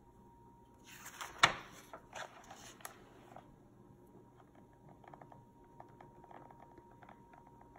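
A picture book's paper page being turned: a rustling swish of about two seconds with a sharp snap about a second and a half in, followed by a few faint light ticks from the paper being handled.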